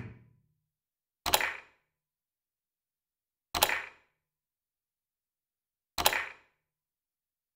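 Three short, sharp percussive hits, each fading quickly, about two and a half seconds apart, with dead silence between them.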